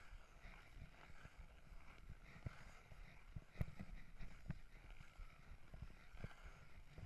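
Ice skate blades gliding over thin black ice: a faint scraping hiss over a low rumble, with scattered small knocks and clicks and one sharper click about halfway through.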